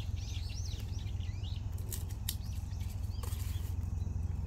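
Small birds chirping in quick repeated calls during the first second and a half, then a few sharp clicks of garlic being cracked and pared with a knife, over a steady low rumble.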